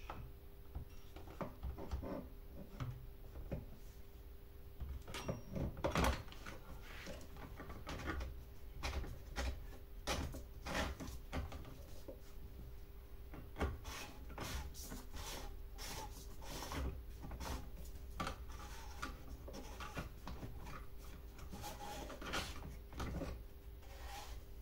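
Irregular clicks, knocks and rattles of plastic and metal chainsaw parts being handled and fitted together, with a louder knock about six seconds in.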